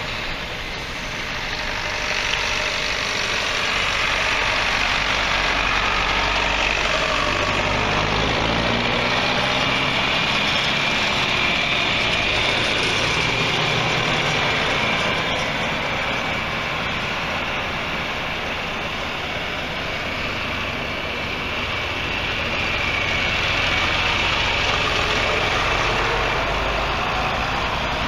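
Farm tractor engines running steadily as a procession of tractors drives past. About eight to ten seconds in, one engine's note rises in pitch.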